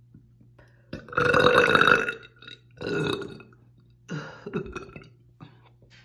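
A woman burping loudly, burps brought up by drinking carbonated Diet Coke: one long burp about a second in, then a shorter one and a weaker third.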